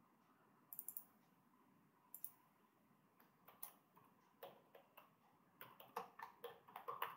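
Faint computer keyboard and mouse clicks: a few scattered clicks, then a quicker run of keystrokes near the end as text is typed.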